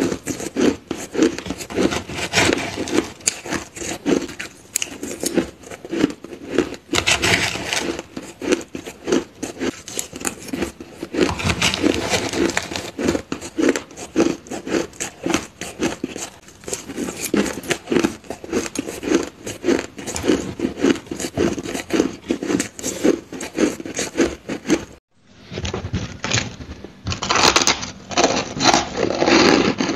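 Crushed ice being chewed close to the microphone, a dense run of rapid crunches. There is a brief break about 25 seconds in, after which the crunching of bitten ice goes on.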